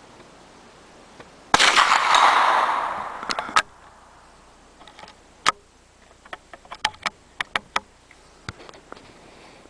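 A single shot from a CZ 452 American bolt-action .22 LR rifle, with a sharp crack about a second and a half in that echoes and fades over about two seconds. A few seconds later comes a quick run of metallic clicks as the bolt is opened, pulled back and closed again to chamber the next round.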